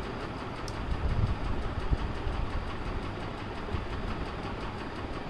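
Steady low rumbling background noise with a few soft knocks about a second and two seconds in.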